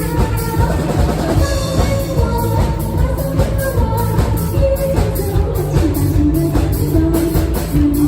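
Live band music with a drum kit keeping a steady beat under a pitched melody.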